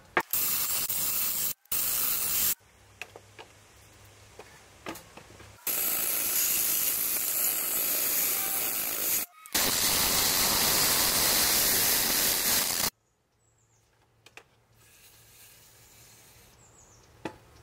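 Cordless drill driving a hole saw into a steel box-section beam with cutting fluid, giving a loud, even grinding hiss in several runs, the longest about seven seconds with one brief break, then stopping about thirteen seconds in.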